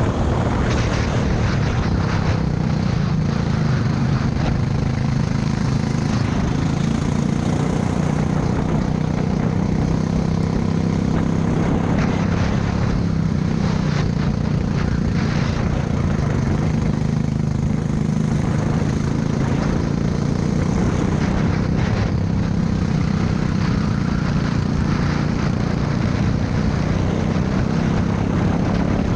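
Racing kart engine running hard at speed, its pitch rising and falling slightly as the kart goes through the corners, with steady wind noise on the onboard camera microphone.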